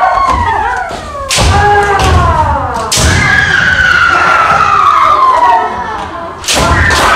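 Kendo practice: several voices shouting long kiai that overlap and slide down in pitch. Sharp cracks of bamboo shinai striking armour and heavy stamps of feet on the wooden floor come about a second and a half in, at three seconds and near the end.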